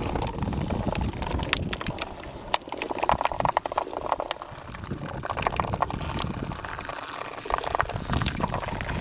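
Hexbug toy bugs buzzing and rattling as they vibrate across the plastic bin floor, with dense irregular clicking as they knock against the wooden blocks and each other.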